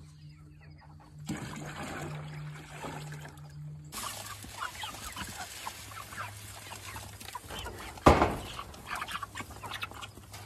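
A flock of Cornish cross broiler chickens clucking as feed is poured down a PVC pipe chute into their chicken tractor, with one loud knock about eight seconds in.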